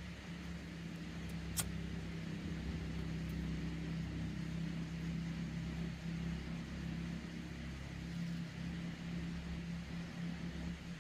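A steady low motor hum, with one sharp click about one and a half seconds in.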